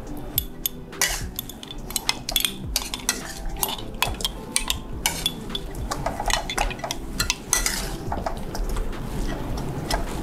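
Metal spatula scraping and clinking against a stainless steel wok, knocking the metal ladle inside it, as raw chicken pieces and spice paste are stirred in the unheated pan. The clanks and scrapes come irregularly and there is no sizzling.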